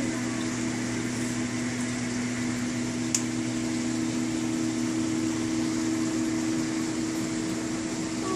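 Steady mechanical hum and hiss, with a low drone of two steady tones. There is one faint click about three seconds in.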